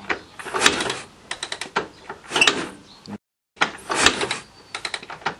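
Kiev K-750 motorcycle's flat-twin engine running at very low revs with an irregular metallic knocking and squeak. The squeak is the sign of a dry piston and connecting rod starved of oil. The sound cuts out briefly a little after three seconds in.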